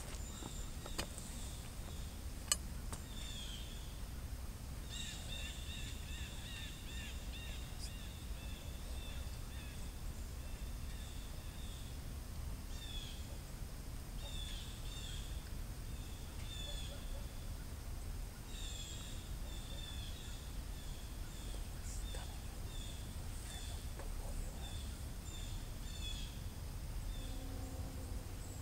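Birds chirping in short repeated calls over a steady low rumble of outdoor background noise.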